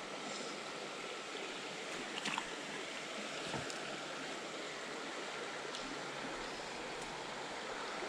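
Creek water running over shallow riffles as a steady, even rush, with a couple of faint clicks.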